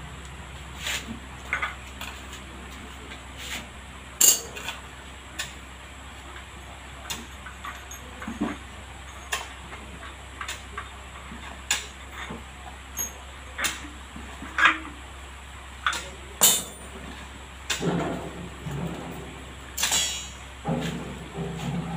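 Scattered metal clinks and knocks, one every second or two, from a wheel being fitted onto a stainless steel tricycle sidecar frame, with a longer rattling clatter near the end.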